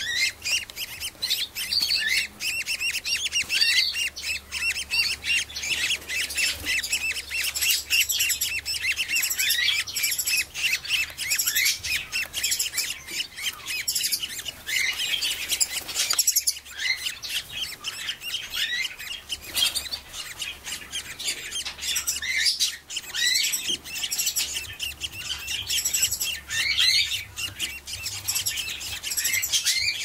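Budgerigars chirping: a dense, unbroken stream of short high chirps and squeaks, many rising in pitch, overlapping one another.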